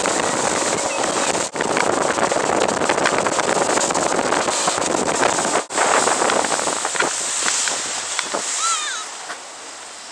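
Wind buffeting the microphone and water rushing past a small boat moving on open sea. A loud, steady rush that cuts out briefly twice and eases near the end, with a few short high chirps shortly before it.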